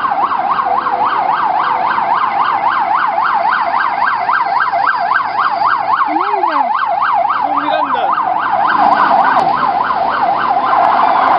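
Police siren sounding in a fast yelp, its pitch rising and falling about four times a second. Near the end it switches to a quicker, denser warble.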